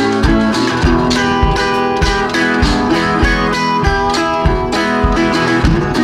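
Background music: guitar with a steady beat.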